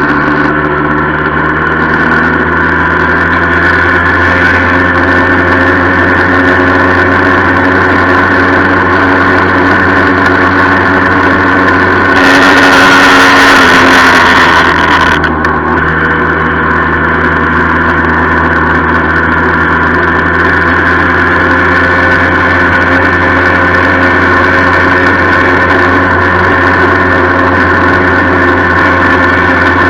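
A 1976 Yamaha FS-1 moped's small two-stroke single-cylinder engine running at a steady speed, with a rattle that the owner attributes to loose parts he has yet to sort out. About twelve seconds in, a louder rushing noise lasts about three seconds.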